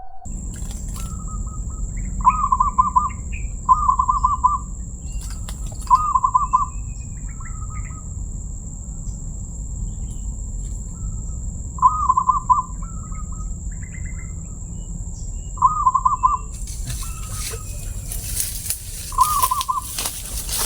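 Zebra dove (perkutut) cooing: about six short, rolling coo phrases, each under a second, spaced irregularly. A thin steady high tone runs behind them until shortly before the end, when it gives way to a flurry of clicks and rustling.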